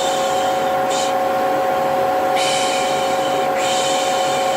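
Vacuum cleaner running steadily with a constant motor whine, overlaid by a person's repeated 'shh' shushing: a short one about a second in, then two longer ones in the second half.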